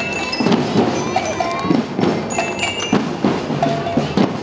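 Marching band (banda de guerra) playing: a steady run of drum strokes with short, ringing bell-lyre notes above them.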